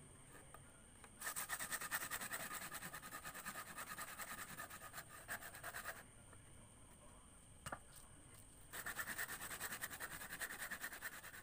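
Wood being rubbed down by hand, with quick, even back-and-forth strokes at about five a second. There are two spells of strokes, separated by a pause of about three seconds with a single click.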